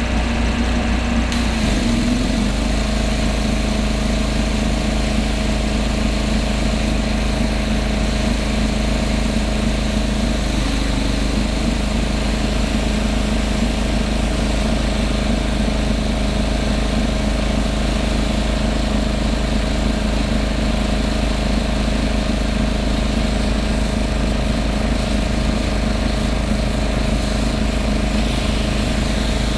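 Hot water pressure washer's engine running steadily, its pitch shifting about two seconds in and then holding.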